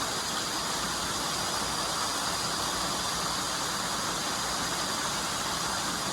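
Steady, even rushing noise, with nothing standing out from it.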